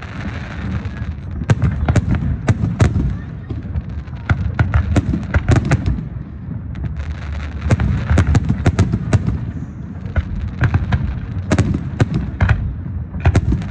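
Fireworks going off: many sharp bangs and cracks, several a second and overlapping, over a steady low rumble.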